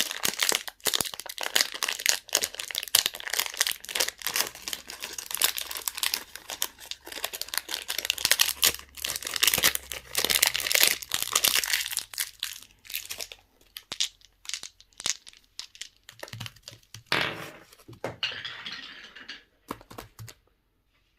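Packaging crinkling and tearing as it is unwrapped by hand: dense crackling for most of the time, thinning to scattered crackles and a few louder rustles, then stopping shortly before the end.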